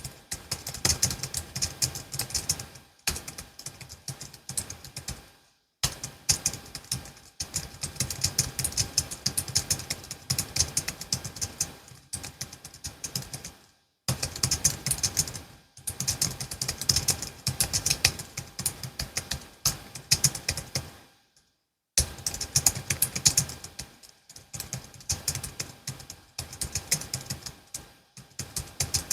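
Logitech MX Keys S low-profile scissor-switch keyboard being typed on quickly and continuously, a dense run of soft key clicks. The typing stops briefly three times: about six, fourteen and twenty-two seconds in.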